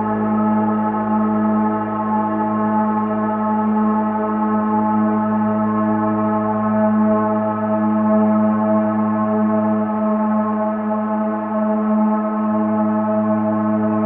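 Steady meditation drone: several sustained tones held together over a low hum, with no strikes, swelling and easing slightly in loudness.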